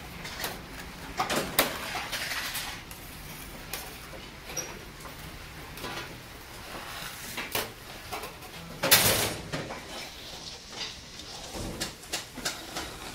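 Irregular metallic clinks and scrapes as a large knife slides roasted chicken pieces off steel skewers onto a steel tray, with one louder clatter about nine seconds in.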